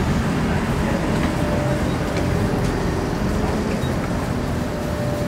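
Tram pulling in along the platform at a street stop: a steady low rumble of wheels and running gear, with a thin steady whine joining about two seconds in.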